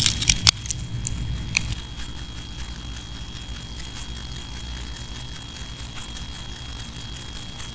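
A few sharp clicks and knocks in the first two seconds, then the steady low hum of the mosque prayer hall with a faint thin high whine, as the congregation rises and gathers its prayer mats.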